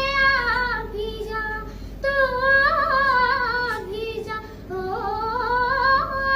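A young girl singing a Hindi song unaccompanied, in long held and gliding notes with short breaths between phrases.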